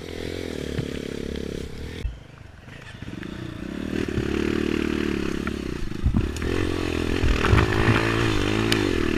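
Honda CRF 230's single-cylinder four-stroke engine revving unevenly. The revs drop off briefly about two seconds in, then climb back and rise and fall repeatedly through the rest.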